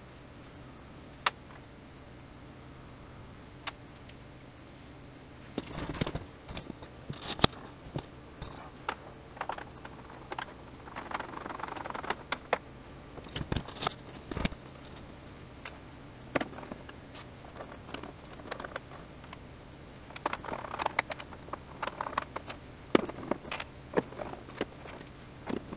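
Small screws and a plastic TV back cover being handled and screwed down with a hand screwdriver: irregular light clicks, rattles and scrapes, sparse at first and coming in clusters from about six seconds in, over a faint steady low hum.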